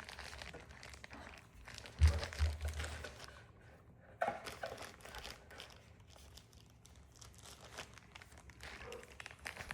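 Blind-box packaging handled and opened by hand: crinkling and tearing of a wrapper with scattered crackles. There is a loud knock about two seconds in and a sharper one about four seconds in.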